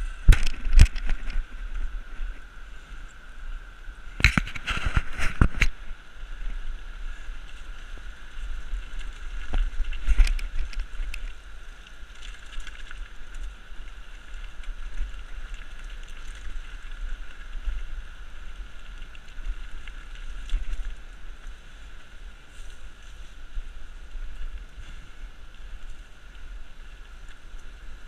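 Bicycle ridden over a rough, rocky path, with clusters of rattles and knocks as it jolts over bumps: near the start, at about four to five seconds and again around ten seconds. Wind rumbles on the microphone throughout, and the river rushes steadily under it all.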